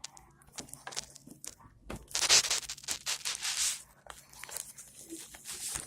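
A plastic Ziploc bag crinkling and rustling, with scattered small clicks, as glitter slime inside it is handled and cut up with a knife. The crinkling is loudest in two stretches, about two and three and a half seconds in.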